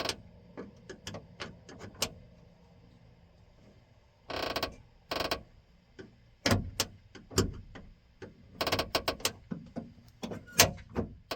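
A newly fitted door latch and handle on a 1997 Ford F-250HD being worked repeatedly to test it: sharp clicks and clacks, with two heavier thunks past the middle. Two short hissing bursts come about four and five seconds in. The latch is now working much better.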